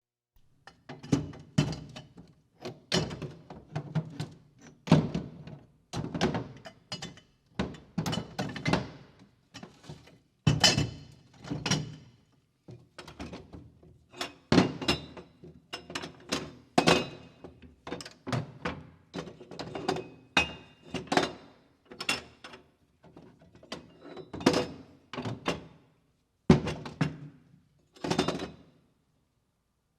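Hand tools and toolbox items being picked up, moved and set down on a hard surface: a long series of separate thunks and metallic clatters, a few a second, some with a short ringing tail.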